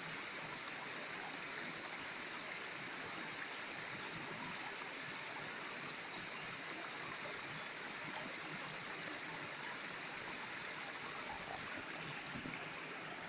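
Shallow stream running steadily over rock slabs, a continuous wash of flowing water.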